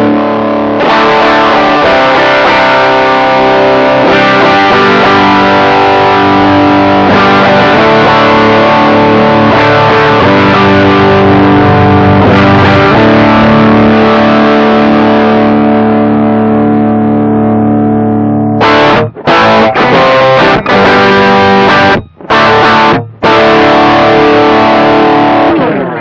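Distorted electric guitar, a 1983 Aria Pro II played through a Caline Orange Burst overdrive pedal (a BB Preamp clone), ringing out long held chords. From about 19 s, short stabbed chords cut off abruptly several times, then a final chord rings and fades.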